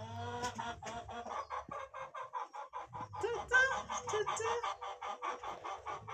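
Chickens clucking in a fast run of short calls, loudest about three and a half seconds in.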